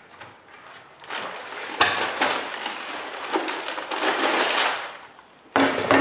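Bar clamps and thin wooden strips handled on a plywood bending mold: rustling, scraping and a few sharp knocks in several spells.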